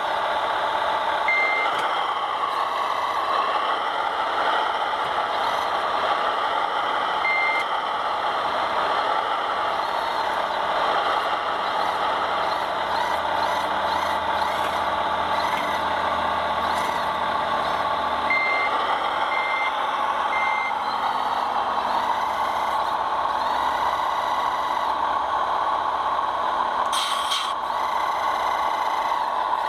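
Scale RC construction machines running, with a steady mechanical hum and engine sound and reversing beeps from the models: two single beeps early on, then three beeps about a second apart. A short hiss comes near the end.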